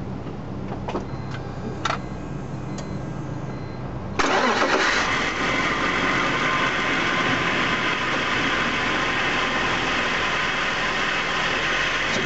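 A few clicks, then the BMW E46 325i's straight-six engine starts about four seconds in and settles into a steady idle with a strong airy hiss: the intake air noise that is the car's fault.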